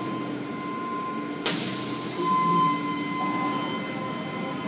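Automatic tunnel car wash machinery running, heard through a window: a steady mechanical hum with a thin high whine, and a sudden hiss about a second and a half in.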